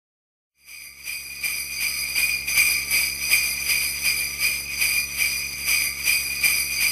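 Sleigh bells shaken in a steady rhythm, about two to three shakes a second, starting out of silence about half a second in.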